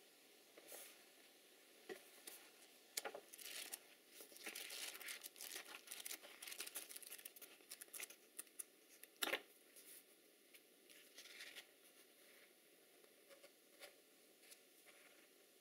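Pages of a thin-paper instruction booklet being picked up and flipped through by hand: quick, faint paper rustles and flicks. They are busiest in the middle, with one sharper page snap a little after nine seconds, then they thin out to a few light rustles.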